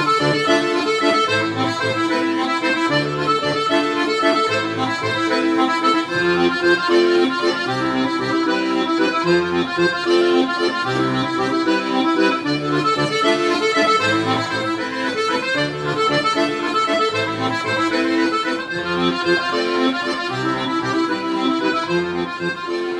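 Solo accordion playing a tune: a melody over held chords, with a steady pulse of bass notes underneath.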